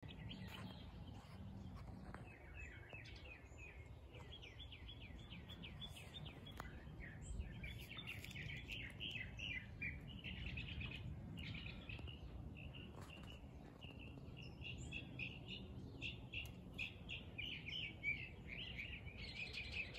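Parrots calling, a nearly continuous run of quick repeated chattering notes, over a faint low background rumble.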